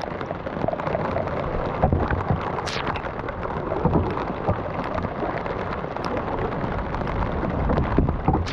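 Heavy rain pouring down, a steady hiss full of close drop impacts pattering near the microphone.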